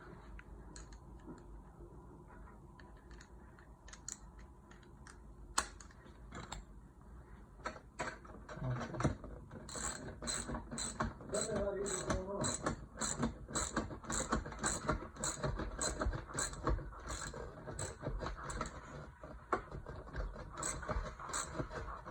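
Socket ratchet wrench clicking in steady strokes, about two clicks a second, through the second half, with a few scattered metal knocks of tool and parts before it.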